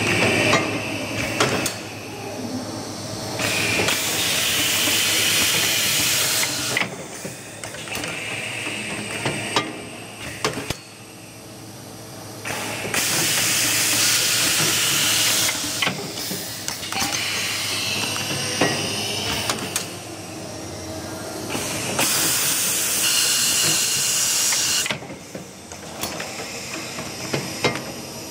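Malivia pneumatic drilling-and-screwing machine running a test cycle. Loud compressed-air hissing comes in bursts of about three seconds, roughly every nine seconds, over a steady machine hum with sharp clicks from its valves and cylinders.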